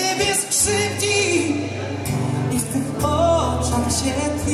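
A man singing a slow song with his own strummed acoustic guitar, performed live.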